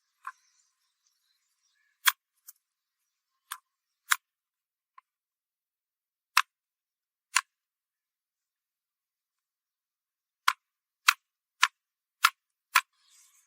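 About a dozen short, sharp clicks at irregular intervals, thin and without low end, with a quick run of five near the end.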